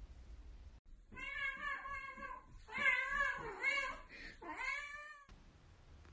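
Golden British Shorthair cat meowing: a run of several drawn-out meows over about four seconds, cut off suddenly.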